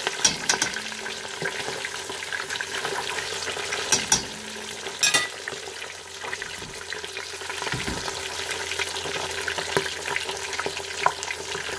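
Two whole fish deep-frying in oil in a stainless steel pot, the oil sizzling and crackling steadily. A few sharp clicks stand out near the start and again about four and five seconds in.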